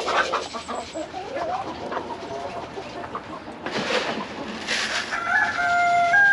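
Chickens clucking with short calls, then one longer, held call near the end. Two brief rushing noises come about four and five seconds in.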